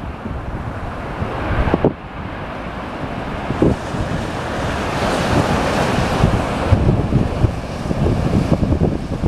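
Strong wind buffeting the microphone, with a broad rushing roar that swells through the middle and eases near the end.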